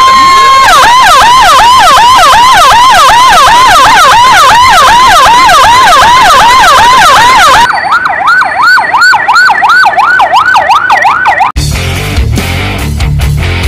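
Electronic emergency-vehicle siren, loud. A held wail switches about a second in to a fast yelp sweeping up and down several times a second, and about 8 s in changes to a quicker, choppier sweep. It cuts off suddenly near the end, where rock music with guitar and drums begins.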